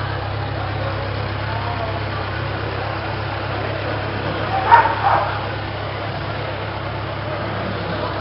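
Kawasaki Z1000's inline-four engine idling steadily through an aftermarket Hurricane sport exhaust tip. Two short, loud sounds come about halfway through.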